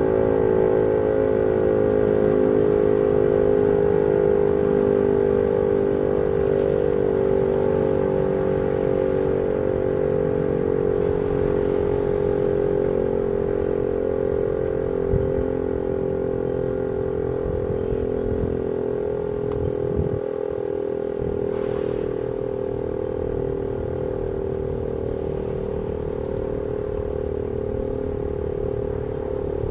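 Fedelcode Model 5 eight-port outdoor warning siren sounding its steady alert tone: one held, chord-like pitch that does not rise or fall and eases only slightly in loudness.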